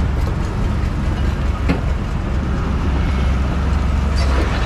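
Diesel engine of a Lonking CDM6225 crawler excavator running steadily with a low rumble as the machine tracks across a dirt lot. A single sharp click comes about a second and a half in.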